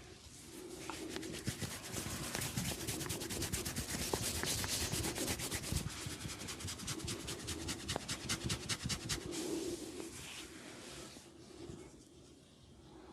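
Hands rubbing briskly through hair and over the scalp in a head massage, a fast run of scratchy rubbing strokes. It builds up about a second in, is loudest in the middle and fades out near the end.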